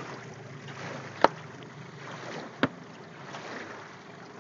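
Wind and water noise around a small aluminum boat, broken by two sharp knocks about a second and a half apart, the first louder.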